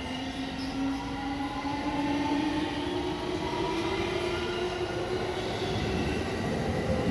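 JR West 223 series 2000 electric train pulling out and accelerating, its traction motors whining in several tones that rise slowly in pitch as it gathers speed, over steady wheel-on-rail rumble. It grows a little louder about two seconds in.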